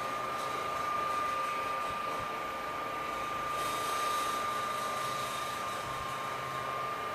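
1970s General Electric Super Luxo 30 desk fan running steadily: a constant rush of air with a steady high whine over it. The airy hiss grows a little brighter about halfway through.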